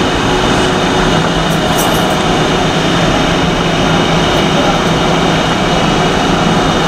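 Vintage SMEE subway cars running through a tunnel, heard from the rear of the train: a loud, steady rumble of steel wheels on rail with a motor hum, and a few faint high clicks about two seconds in.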